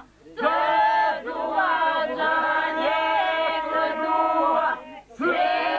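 A group of people singing together unaccompanied at a family party, in long held phrases with several voices sounding at once. The song breaks briefly for breath about a quarter second in and again about five seconds in.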